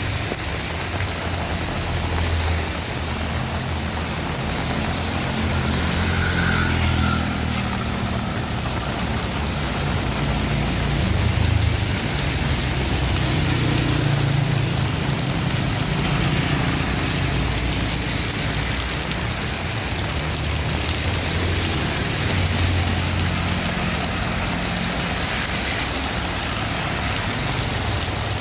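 Heavy rain falling steadily, with a motor vehicle's engine running underneath it as a low hum that swells and fades.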